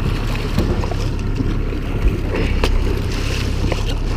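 Boat motor running steadily with a low hum, wind and water noise, and a few short knocks.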